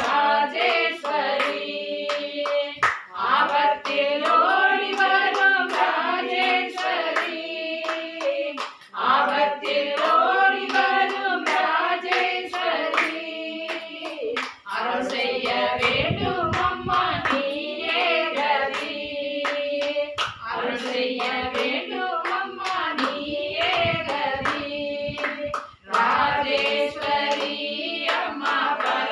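Group of women singing a Hindu devotional bhajan together, clapping their hands to a steady beat; the sung lines break off briefly and start again several times.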